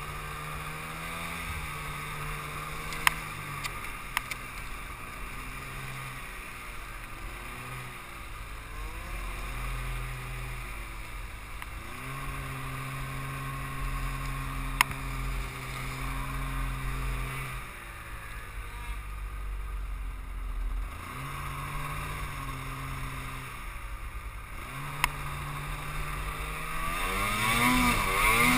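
Snowmobile engine heard from the rider's seat, its pitch rising and falling in steps as the throttle is worked through deep snow and brush. A few sharp clicks cut through, and near the end the engine revs up steeply.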